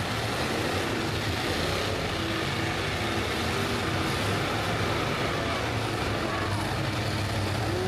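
Engines of several demolition derby cars running together in a steady, dense mix.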